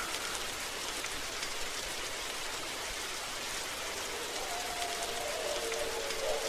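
A steady, crackly hiss like falling rain, with a faint wavering tone joining about four and a half seconds in.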